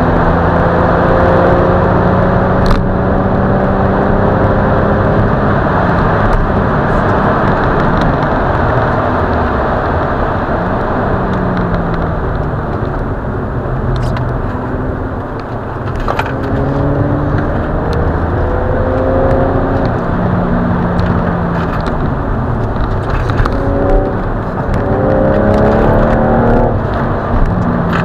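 Car engine heard from inside the cabin at circuit speed over a steady rush of tyre and wind noise. The pitch climbs under acceleration at first, drops as the car eases off around the middle, then rises again in quick steps near the end.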